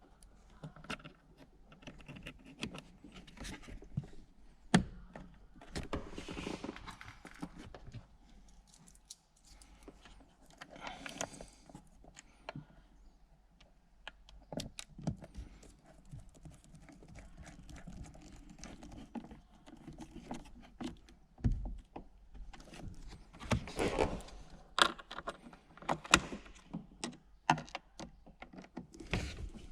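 Hands working on car interior parts: scattered clicks and knocks with bouts of rustling and a few louder thumps, as trim and hardware are handled and fitted back in place.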